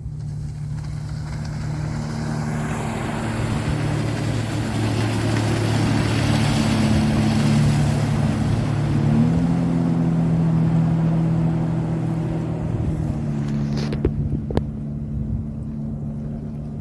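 A motor engine running steadily, growing louder towards the middle and then easing off, as something passes by; its pitch steps up slightly about halfway through. Two short clicks come near the end.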